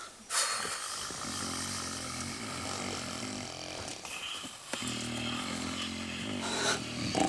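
Snoring: a long rasping, buzzing breath, a short break, then another.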